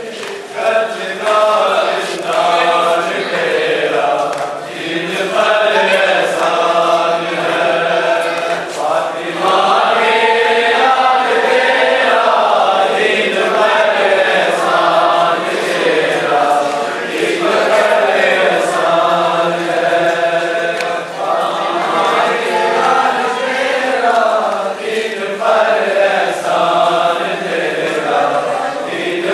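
A crowd of men chanting a Muharram mourning lament (noha) together in long, repeated sung phrases, with faint, irregular slaps of hands beating on chests (matam).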